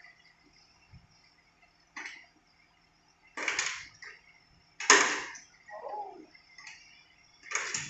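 Honda Activa scooter being kick-started, four short strokes of the kick lever turning the single-cylinder four-stroke engine over, the third loudest. Between the third and fourth comes a brief falling sound. The engine does not catch.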